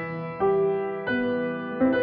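Slow background piano music, a new note or chord struck about every two-thirds of a second and left to ring.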